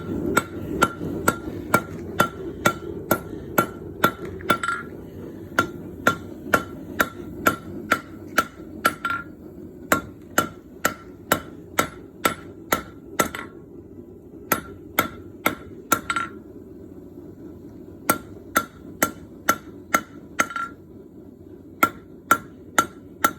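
Blacksmith's hammer striking bronze stock on an anvil while forging, in runs of steady blows about two a second broken by short pauses, each blow ringing. A steady low hum runs beneath.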